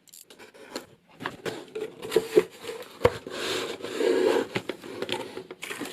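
A cardboard box's seal sticker being torn and the box opened and handled: rubbing, scraping and rustling of cardboard with several sharp taps and knocks, including a longer scraping rustle around the middle.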